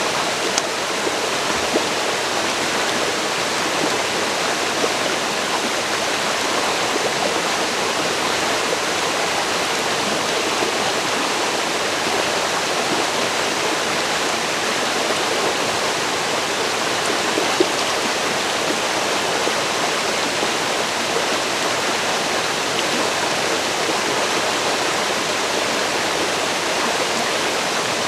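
River water rushing and splashing over rocks in a steady, unbroken rush, with a few faint splashes or ticks standing out here and there.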